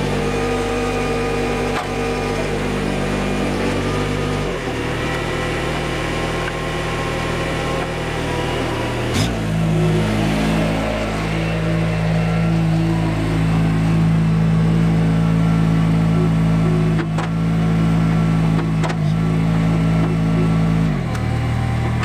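Gehl 1620 mini skid steer's diesel engine running under work, its speed shifting several times: a dip about four seconds in, a sharp rise about nine seconds in, and a drop again near the end. A few short knocks are heard along the way.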